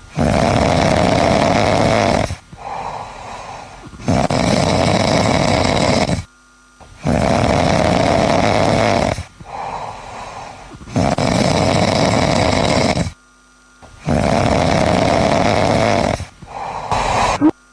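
Loud, exaggerated snoring: five long snores of about two seconds each, roughly every three seconds, with softer sounds between some of them. It is the snoring of the sleeping lion character, which is meant to pass for a lion's roar.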